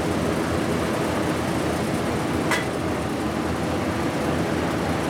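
A steady machine drone, with one sharp click about two and a half seconds in.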